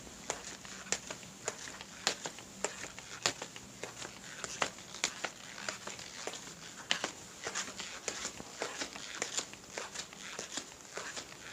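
Footsteps at a steady walking pace, a little under two steps a second. Each step is a sharp click, with many smaller clicks and crunches between the steps.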